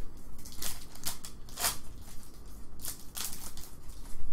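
Foil trading-card pack wrapper crinkling as it is opened, and the stack of cards rubbing together as it is handled, in several short rustles.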